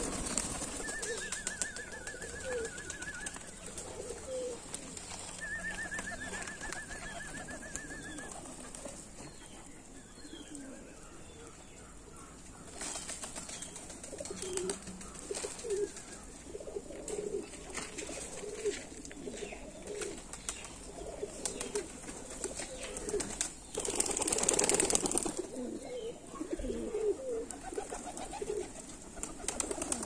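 A feeding flock of domestic pigeons cooing, with a steady patter of beaks pecking grain off the ground. There is a short, louder rush of noise late on.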